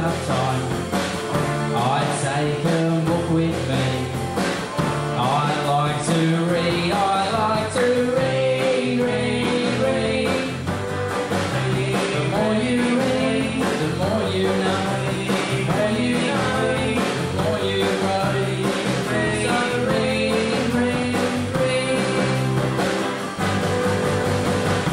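Live rock band playing: electric and acoustic guitars, bass guitar and drum kit keeping a steady beat, with a man singing.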